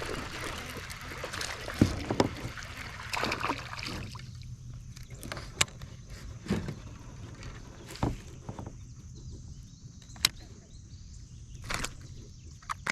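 Water splashing and sloshing as a small hooked largemouth bass is reeled in beside a kayak. This gives way about four seconds in to scattered sharp clicks and knocks of handling gear against the boat.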